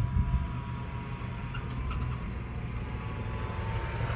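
1947 Farmall H tractor's four-cylinder engine running steadily with a low rumble.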